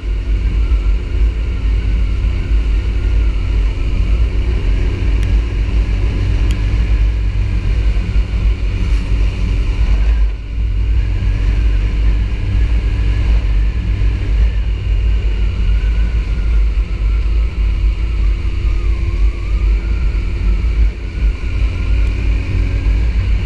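Sport motorcycle riding along at a steady pace: the engine runs with a fairly even note under heavy wind rumble on the onboard microphone. The sound dips briefly about ten seconds in.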